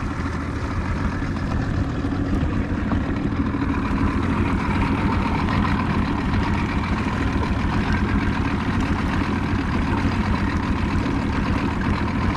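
Boat motor running steadily, a constant low hum with no change in speed.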